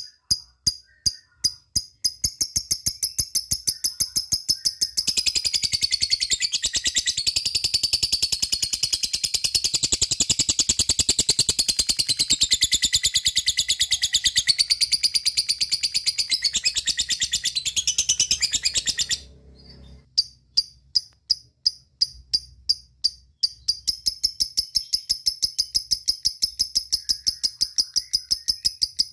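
Lovebird calling: a run of sharp, repeated ticking chips, then, about five seconds in, a long continuous high-pitched chattering trill (the 'ngekek'). The trill cuts off suddenly about fourteen seconds later and gives way to repeated chips again.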